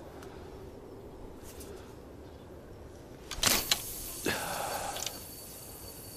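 A feeder rod being cast: a sharp swish about three and a half seconds in, then the line hissing off the spinning reel for about three seconds with a thin high whistle.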